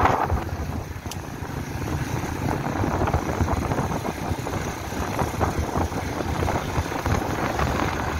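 Small motorcycle's engine running steadily while riding along a paved road.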